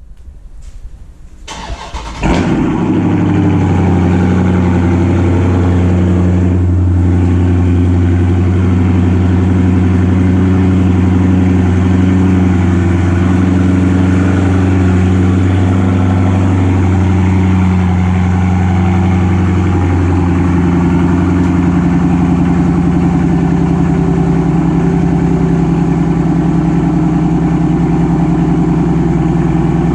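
Car engine cold start: the starter cranks for about two seconds, then the engine catches with a jump in loudness and settles into a loud, steady fast idle. The idle drops a little about twenty seconds in as it warms.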